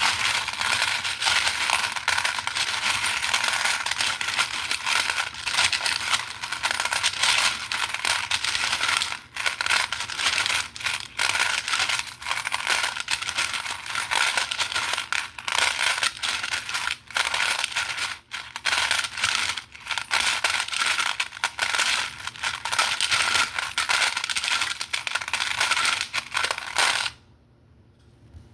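Dense, continuous rattling and clinking of small hard objects, with a few brief pauses, stopping suddenly near the end.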